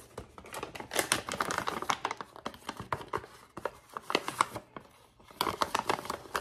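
Stiff packaging pouch crinkling and crackling as it is worked open and handled, in several bursts of sharp crackles.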